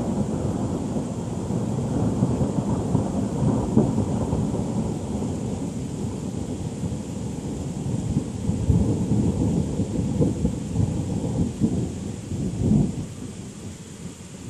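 Thunder rumbling through steady rain, swelling in the second half and dying away near the end.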